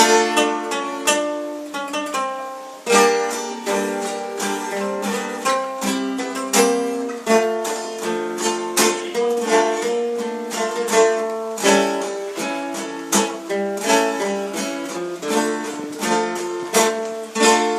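Instrumental break of a Brazilian sertanejo song: plucked string instruments play a quick melody of separate picked notes over strummed chords, with no singing.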